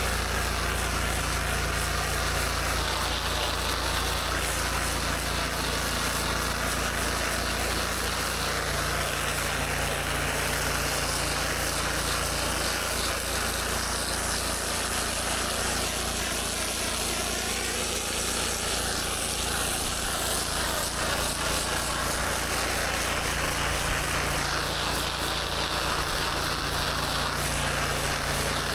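Gas-engine pressure washer running steadily, with high-pressure water spraying and hissing on concrete.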